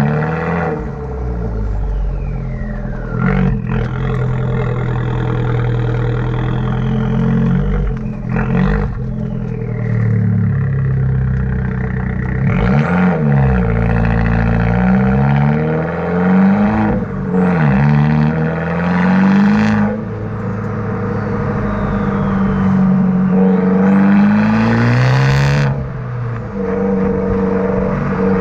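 Exhaust note of a 2017 Abarth 595 Competizione's 1.4-litre turbocharged four-cylinder through a Monza exhaust with its valve flap wired open, on a stage 1 remap. The car is being driven, its engine pitch climbing under acceleration and dropping sharply at each of several gear changes.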